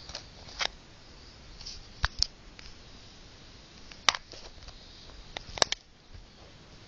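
Handling noise of a hand-held camera: a handful of sharp clicks and knocks over a low rustle as fingers and clothing rub against it.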